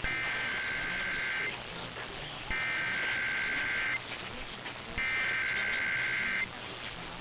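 Emergency Alert System SAME header: three bursts of harsh, modem-like data tones, each about a second and a half long with about a second's gap, over a steady hiss. These digital bursts open an EAS alert, here a coordinated monthly test.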